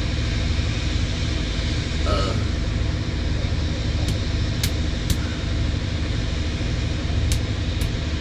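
A steady low mechanical drone, like a running engine or motor, with a few sharp clicks in the second half.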